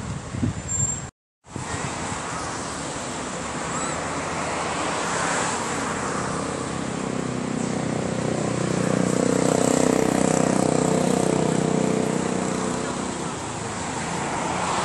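A motor vehicle's engine growing louder and then fading over several seconds, loudest about two-thirds of the way through, over steady traffic noise. The sound cuts out completely for a moment about a second in.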